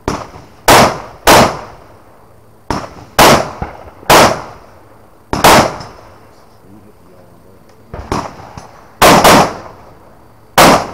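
Rifle being fired in single shots: about eight loud, sharp reports at uneven spacing, some in quick pairs a fraction of a second apart, each followed by a short echo, with a couple of fainter bangs between them.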